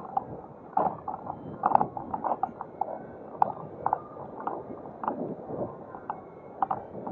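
Powered wheelchair rolling over pavement: irregular rattling clicks and knocks, several a second, over a steady hiss of rolling and street noise.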